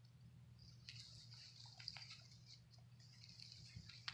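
Near silence: a faint low hum with a soft high hiss that comes and goes, and a few light ticks.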